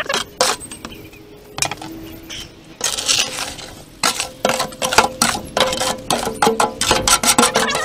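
Wet concrete mix being scraped and pushed out of a tipped plastic wheelbarrow into a post hole with a hand tool: a run of gritty scrapes and clinks that comes thick and fast in the second half, with a short sliding hiss of concrete in the middle.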